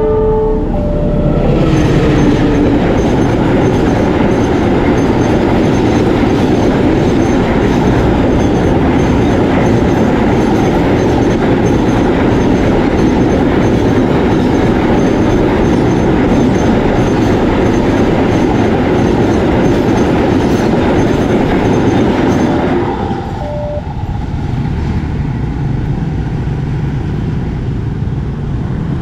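A train passing over a level crossing, about twenty seconds of loud, steady wheel-and-rail noise that cuts off fairly sharply. It is preceded right at the start by a short, multi-tone blast of the train's horn.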